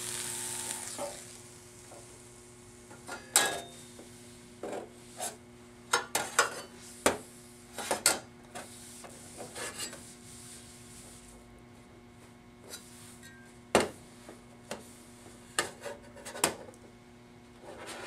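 An electrolytic weld cleaner's wand sizzling on a stainless steel weld for about the first second, as it removes the heat tint, then stopping. After that come scattered sharp clacks and knocks and some rubbing as the stainless sample is wiped with a towel and handled on a stainless steel tabletop, the loudest clacks about three and a half and fourteen seconds in, over a low steady hum.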